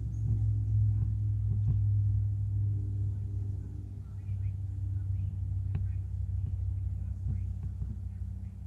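A low, steady engine drone, with a few light clicks and taps over it.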